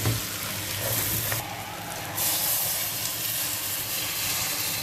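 Hot boiled water poured into a pot of rice that has been sautéing in oil, the hot pot hissing and sizzling as the water hits it.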